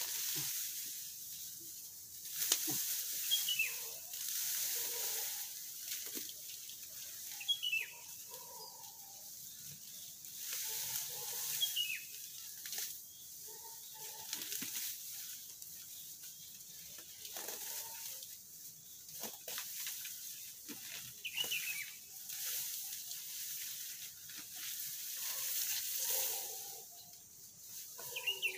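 Tall grass and weeds rustling and snapping as they are pulled up by hand, in repeated bouts. A bird gives a short descending chirp every few seconds.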